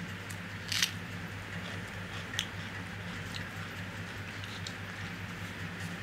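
A crisp crunch as a raw red onion is bitten, about a second in, then a few fainter crunches of chewing, over a steady low hum.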